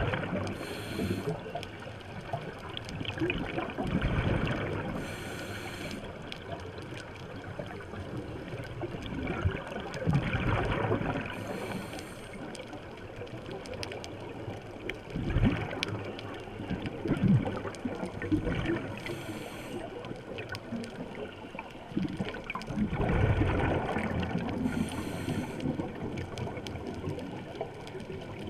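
Scuba diver breathing through a regulator underwater: short hissing inhalations alternating with rumbling, gurgling bursts of exhaled bubbles, a breath every several seconds.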